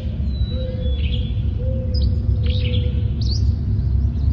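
Steady low rumble of a vehicle driving slowly along a paved road, with birds chirping several short times over it.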